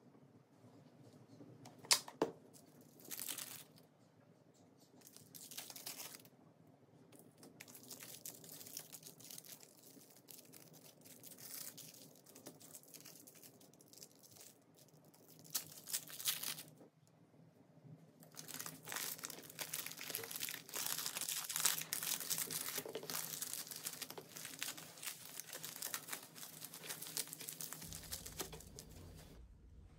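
Plastic cling film and food wrappers crinkling and tearing as hands handle them: a sharp click about two seconds in, short bursts of crackling, then a long stretch of steady crinkling near the end as the cling film is folded around the onigirazu.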